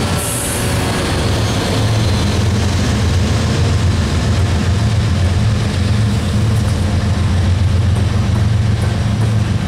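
GE diesel-electric freight locomotives, an AC44CW and then an ES40DC, passing close by at the head of a loaded coal train, their engines running with a steady low drone. A short high hiss comes just after the start.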